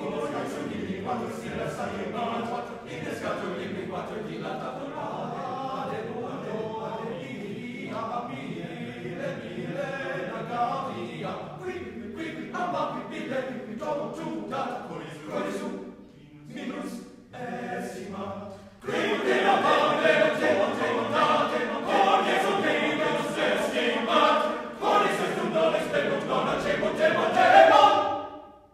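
Mixed choir singing a cappella in lively, rhythmic phrases. About two-thirds of the way through the singing breaks into short separate stabs with gaps. It then comes back louder and fuller, swelling to a final chord that cuts off sharply at the end.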